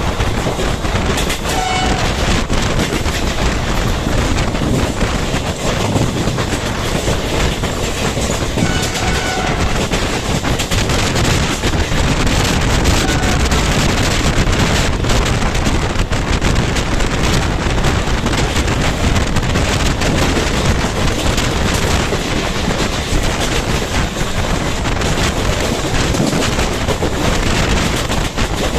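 Passenger train running at speed, heard from aboard: a steady rush of wheel-on-rail noise and wind, with clickety-clack from the track.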